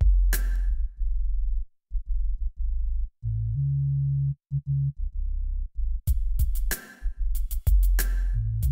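Electronic background music: a deep synth bass line that steps between notes, with drum-machine hits. The drums drop out after the first second and come back about six seconds in as a run of quick, sharp hits.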